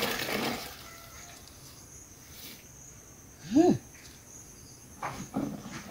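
Water splashing into a plastic basin as washing is wrung out by hand, then a faint steady insect buzz, broken about three and a half seconds in by one short call that rises and falls in pitch, and a few light knocks near the end.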